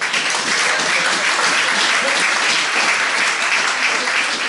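Audience applause, breaking out suddenly and thinning near the end.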